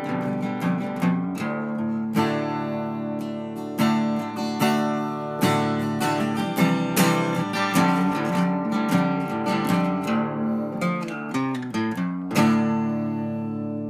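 Acoustic guitar music, strummed and picked, with a last chord about twelve seconds in that rings out and fades.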